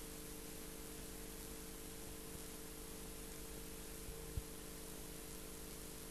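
Steady hiss with a low electrical hum under it, the recording's own background noise with no other sound; one short click a little past the middle.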